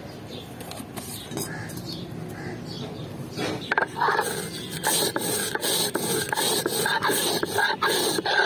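Stone muller scraped back and forth on a grooved stone grinding slab (shil-nora), crushing dry-roasted cumin seeds. Rhythmic rasping strokes start a little before halfway, after a quieter stretch.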